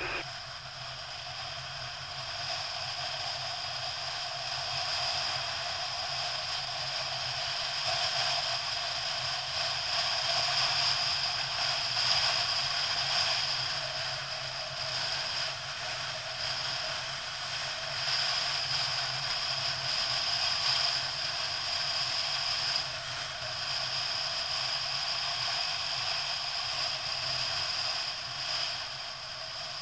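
Motorcycle riding along the road, heard from a camera mounted on the bike: a steady hiss of wind and road noise over a low engine note, the level swelling and easing gently.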